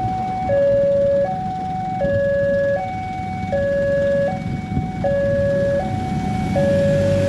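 Railway level-crossing alarm sounding from its horn loudspeaker: an electronic two-tone warning that alternates a higher and a lower note, each held about three-quarters of a second, repeating steadily. It keeps sounding while the barrier booms start to lift.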